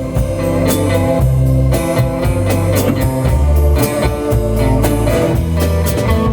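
A rock band playing an instrumental passage: guitar over bass and drum kit, with a steady beat.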